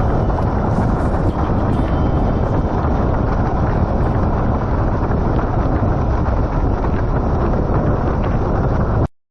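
Strong wind buffeting an action camera's microphone while windsurfing, as a loud, steady rumble that cuts off suddenly near the end.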